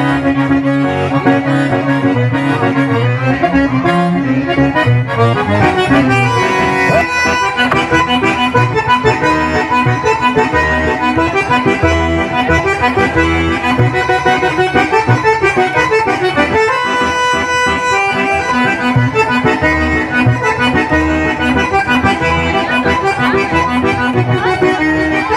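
Accordion played solo, a quick tune with a pulsing bass and chord accompaniment under the melody.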